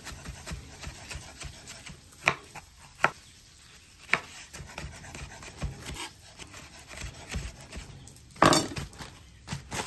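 Chef's knife chopping green onions and jalapeños on a bamboo cutting board: a run of small irregular taps of the blade on the wood, with a few sharper knocks and the loudest one near the end.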